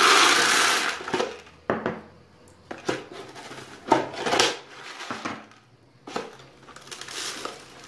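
Dried corn kernels poured from a wooden bowl into a cut plastic bottle, a loud rattling pour in the first second. Smaller rattles and knocks follow as the kernels shift in the plastic and the wooden bowls are picked up and set down, with a finer grain poured in near the end.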